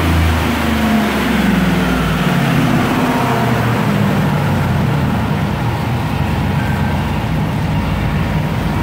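Chevrolet TrailBlazer engine on a chassis dyno, its pitch falling over the first two to three seconds as the revs come down after a full-throttle pull, then running on steadily.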